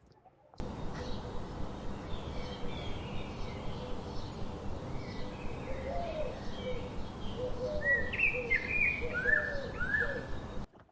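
Steady rushing water of a waterfall, with many birds chirping over it; several repeated down-slurred calls grow louder in the last few seconds. The sound starts and stops abruptly.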